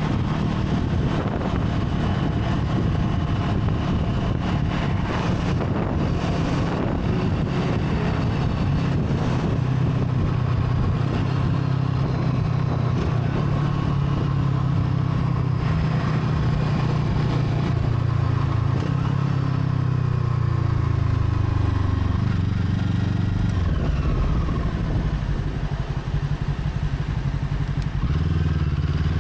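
Brixton Crossfire 500's parallel-twin engine running under way, its note steady for a long stretch, then falling in pitch as it slows, dipping briefly, and picking up again near the end.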